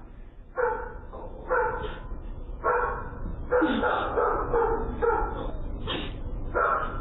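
A dog barking repeatedly, about once a second, heard through a doorbell camera's microphone.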